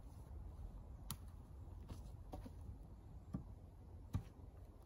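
A few faint, scattered clicks and knocks, about five in all, the loudest two near the end, over a low steady rumble.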